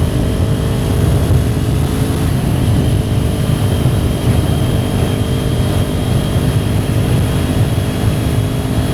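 Kawasaki Ninja 400's parallel-twin engine running at a steady, nearly constant pitch while riding, over a heavy low rumble.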